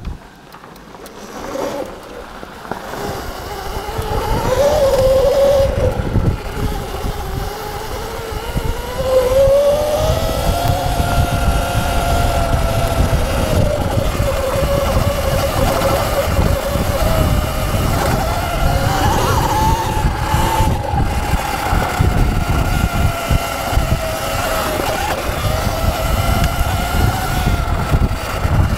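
Electric dirt bike being ridden: a motor whine that rises and falls with speed over a heavy low rumble, getting louder over the first few seconds as it picks up speed.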